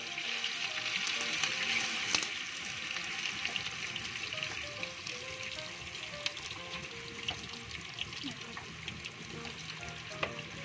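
Tofu and potato pieces frying in hot oil in a wok, a steady sizzle, with scattered light clicks of a metal spatula against the wok as the pieces are turned.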